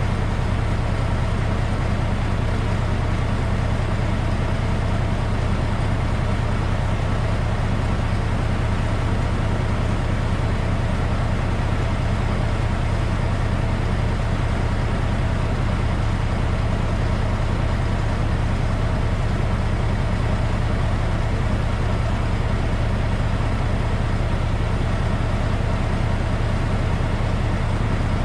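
Log truck's diesel engine running steadily, a constant low hum with no change in speed.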